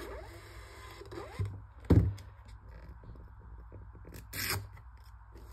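Polono PM220S thermal label printer whirring briefly as it feeds out a printed sticker label, its motor pitch rising. A sharp thump follows about two seconds in, then a short rip as the label is torn off against the printer's tear edge near the end.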